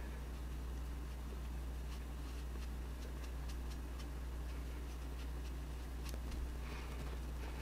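Faint, irregular soft taps and clicks of a makeup sponge dabbing foundation onto the face, over a steady low electrical hum.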